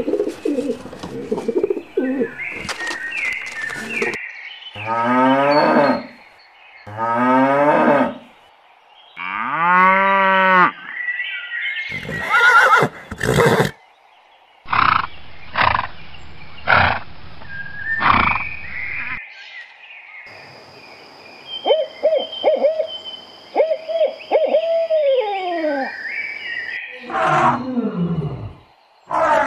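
A series of different animal calls one after another, separated by short gaps. Several are pitched calls that fall in pitch, and a run of about five sharp clicks or knocks comes near the middle.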